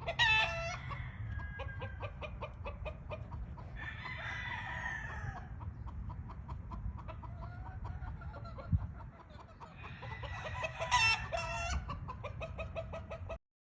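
Roosters crowing three times, near the start, about four seconds in and around eleven seconds in, with clucking between the crows. The sound cuts off abruptly just before the end.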